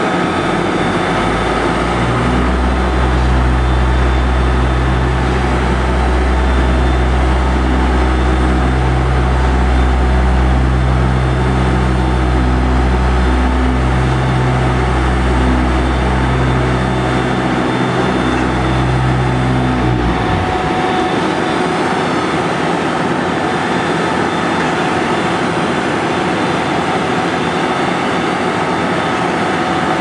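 Asphalt paver's diesel engine running steadily with a constant whine. A low droning hum joins it for most of the first twenty seconds and cuts off suddenly.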